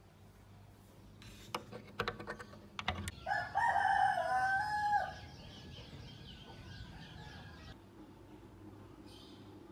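A rooster crows once, a loud call of about two seconds starting about three seconds in, preceded by a few sharp clicks.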